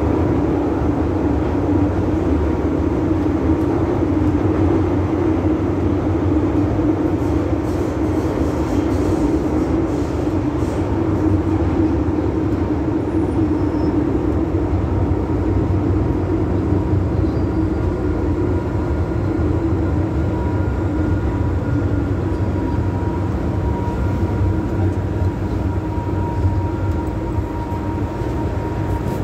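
MTR M-Train electric metro car heard from inside while running through a tunnel: a steady rumble of wheels on rails. A thin whine rides over it and grows stronger in the last few seconds as the train comes alongside a platform.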